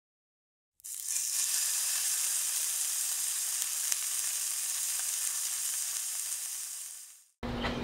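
Skirt steak sizzling on a hot charcoal grill: a steady, hissy sizzle that starts about a second in, has a faint pop or two, and fades out near the end.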